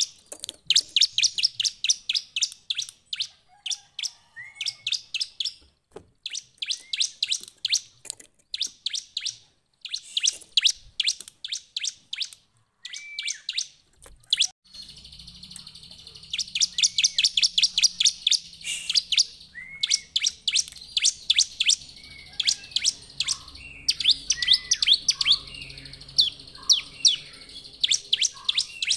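Bar-winged prinia (ciblek) singing. It gives fast runs of sharp, high chirps, about ten a second, in bursts of a few seconds with short pauses, and a lower hooked note at the start or end of some runs.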